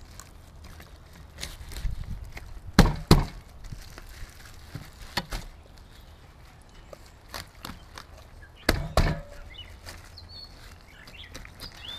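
Filleting knife cutting a tautog on a wooden picnic table, knocking against the boards: a sharp pair of knocks about three seconds in and another pair near nine seconds, with lighter knocks and cutting between.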